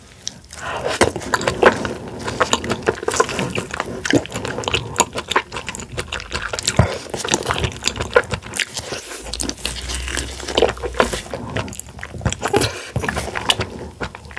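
Close-miked eating of raw king crab leg meat: soft meat bitten and sucked off the shell and chewed, a dense, irregular run of wet clicks and smacks.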